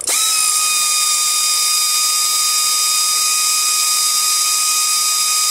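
Pneumatic air ratchet running at full speed, a steady high whine over a loud hiss of exhaust air, spinning out bolts that have already been broken loose.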